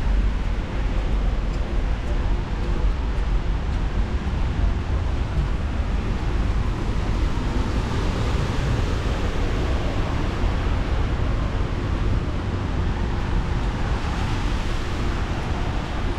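Steady city road traffic along a riverside quay, swelling and easing as vehicles pass, with a low rumble of wind on the microphone.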